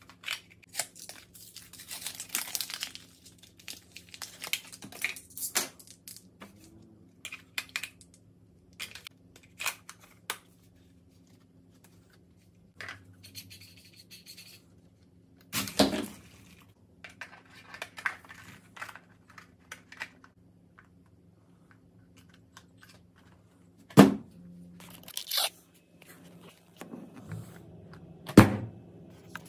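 Hands handling a plastic RC buggy transmitter and body shell: a run of rustling, crinkling and small plastic clicks, with a sharp knock about halfway and two louder knocks near the end. A faint steady low hum sits underneath.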